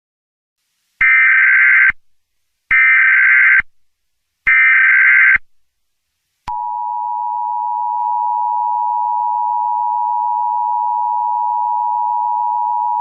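Emergency Alert System tones: the SAME header's data burst sent three times, each about a second long, then about six seconds in the steady two-tone EAS attention signal starts and holds.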